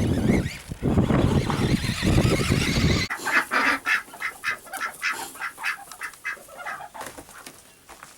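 A loud rushing noise for about three seconds that cuts off abruptly. It is followed by a flock of domestic ducks calling in many rapid, short quacks that fade away.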